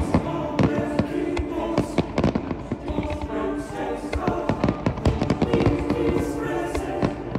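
Fireworks finale: a dense run of aerial shell bursts, several sharp bangs a second, over music with held notes and singing voices.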